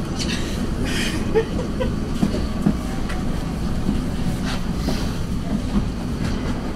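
A tram running along its track, heard from inside the car: a steady low rumble with several short knocks from the wheels over the rails.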